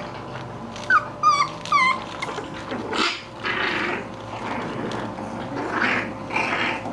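English bulldog puppies at play: two short high whimpering cries a little apart about a second in, each dropping in pitch, followed by noisier scuffling sounds from the puppies.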